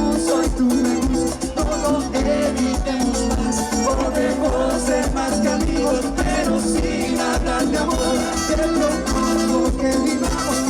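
A live dance orchestra playing Latin music with a steady beat of percussion.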